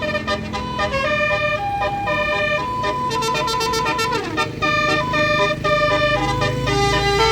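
Bus 'telolet' musical air horn (Basuri type) playing a quick tune of changing notes, several tones sounding at once, with a falling glide about four seconds in. A bus engine's low rumble grows louder near the end.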